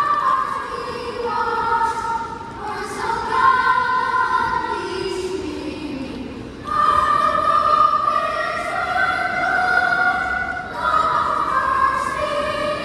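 Choir singing a slow piece in long, held notes, with a brief pause about six and a half seconds in.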